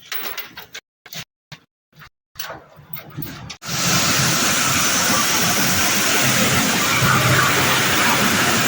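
A steady engine-driven noise cuts in suddenly about three and a half seconds in: a loud, even hiss over a low rumble that holds without change. Before it come a few brief scattered knocks and rustles broken by dead gaps.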